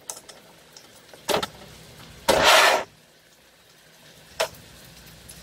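Shrimp frying in a metal sauté pan while being turned with a slotted plastic spatula. A few short knocks of the spatula against the pan and one half-second scrape about two seconds in sound over a faint steady sizzle.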